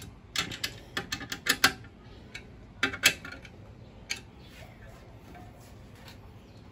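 Metal latch plate on a motorcycle top box's mounting base plate being worked by hand, giving sharp metallic clicks and clacks. There is a quick run of about eight in the first two seconds, two more about three seconds in, and a faint one a second later.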